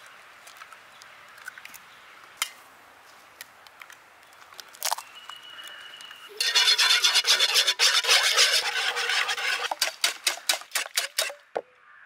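Eggs cracked against a knife edge and dropped into a non-stick pan, a few scattered taps and knocks. About six seconds in, the eggs are beaten fast in the pan: a rapid run of clicking of a utensil against the pan, slowing and stopping near the end.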